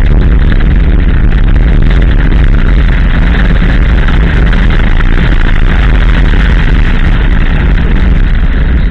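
Abarth 500 with its 1.4-litre turbocharged four-cylinder driven hard on a loose gravel stage, heard from outside the car beside the front wheel: engine, tyres on gravel and heavy wind buffeting on the microphone blend into one loud, steady noise.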